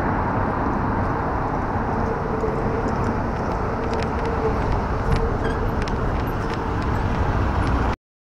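LiAZ 6213.22 articulated city bus drawing up alongside, its engine running with a faint steady tone over the street noise; the sound cuts off abruptly near the end.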